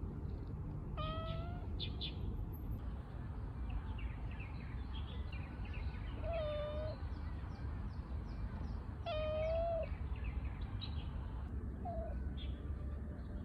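A cat meowing three times a few seconds apart, each call about half a second long, then a short fourth call near the end. Small birds chirp in the background.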